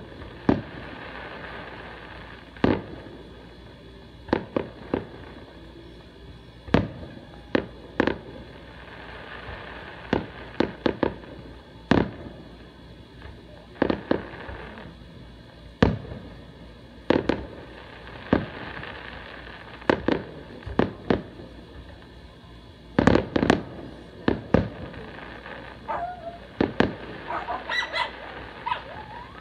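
Aerial fireworks shells bursting overhead: sharp booms, one every second or two, bunched closer together just past the middle, then a quick run of smaller crackling pops near the end.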